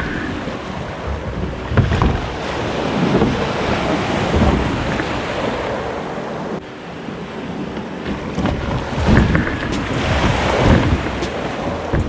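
Sea surf washing in with wind buffeting the microphone in irregular low rumbling gusts.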